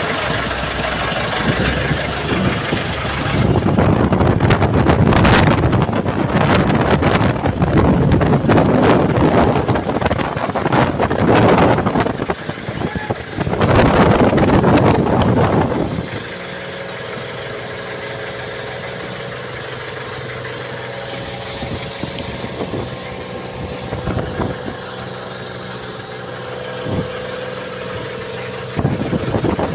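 Strong wind and waves crashing and splashing against an outrigger fishing boat in rough sea, loud and surging for about the first half. Then the noise eases and the boat's engine is heard running steadily under the wind.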